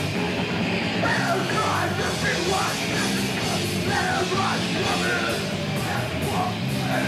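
Punk rock band playing live: loud, driving drums and amplified instruments, with the singer shouting into the microphone from about a second in.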